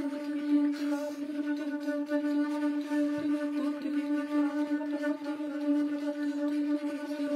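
Two flutes sustaining one long, steady unison note in a minimalist ensemble piece, the pitch held unchanged throughout.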